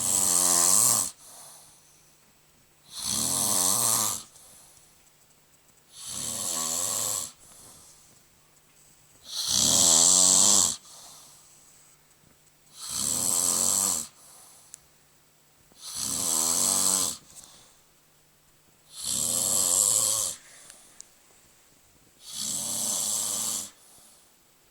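Loud snoring: about eight long, rattling snores, one roughly every three seconds, each followed by a quieter breath.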